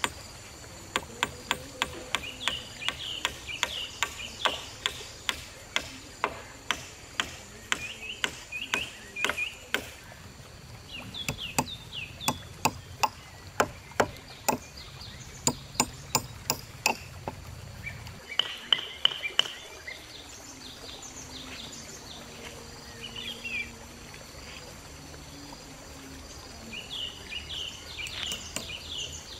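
Hammer tapping on bamboo poles: a long run of sharp knocks, about one or two a second with a few quicker bursts. Birds chirp between the strokes.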